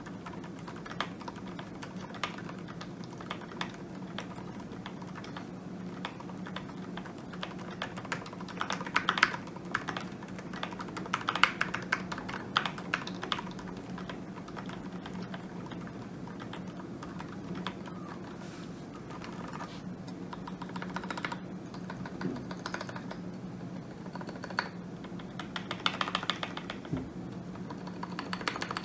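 Typing on a custom mechanical keyboard with lubed linear switches and PBT keycaps: a run of quick keystrokes, in denser bursts for a few seconds at a time, over a steady low background hum.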